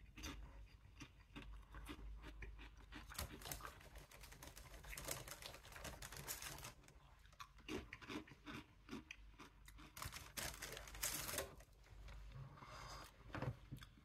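A person chewing and crunching potato crisps, faint, in a run of short crisp crackles.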